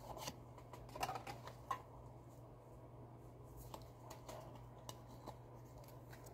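Faint, scattered clicks and rustles of a Pokémon booster pack and its cards being handled, over a steady low hum.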